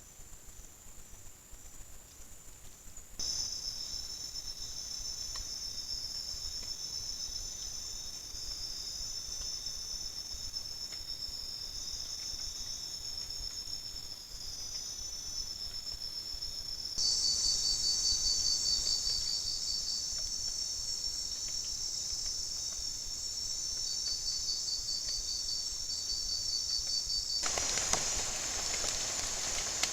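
Forest insect chorus of crickets: several steady high-pitched trills layered together, growing louder and changing pattern abruptly about three seconds in and again about halfway through. A broad hiss joins near the end.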